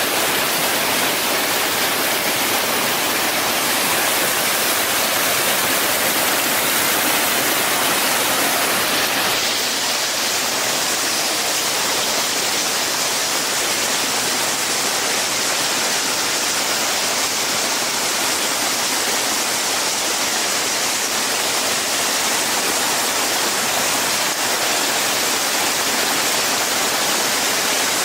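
A steady rushing noise, its highest part dropping slightly about nine seconds in.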